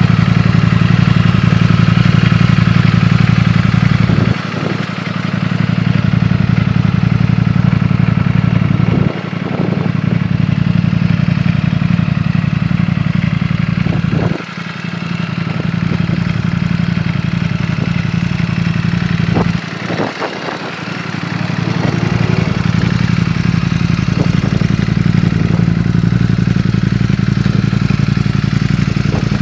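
Ducati Panigale V4's V4 engine idling steadily, with several brief drops in level.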